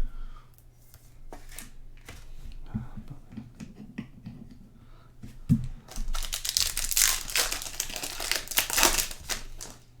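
Trading-card pack handling: small clicks and rustles of cards, then about six seconds in a loud, dense crinkling for about three seconds as a foil card-pack wrapper is crumpled and torn open.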